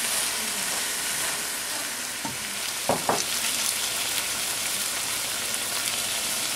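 Diced sweet potatoes sizzling steadily in a frying pan while a spoon stirs and mashes them, with a few short knocks of the spoon against the pan about two and three seconds in.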